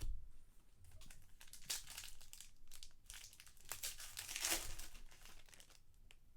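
Trading-card pack wrappers being torn open and crinkled by hand, an irregular run of crackling rustles that is loudest a little past the middle.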